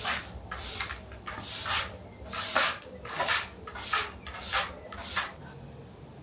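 Trigger spray bottle spritzed again and again, a short hiss about every half second, stopping about five seconds in.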